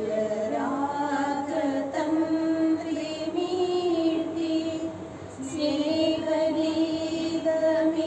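A woman singing a slow prayer song, a melody in long held notes with a short breath pause about five seconds in.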